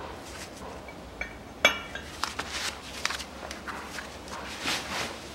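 Steel bearing outer race being set by hand into the seat of a rear wheel hub: light metal clicks and handling noise, with one sharp clink that rings briefly about a second and a half in.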